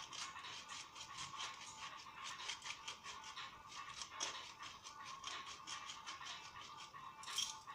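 Salt grinder being twisted over a pan: a rapid, even scratchy grinding, with one louder stroke near the end, over a faint steady tone.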